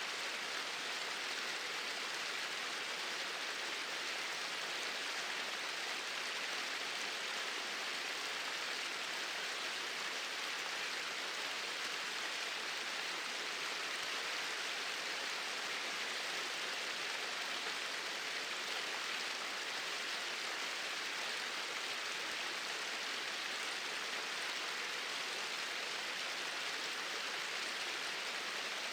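Water pouring steadily over two small waterfalls: an even, unbroken hiss with no splashes or changes standing out.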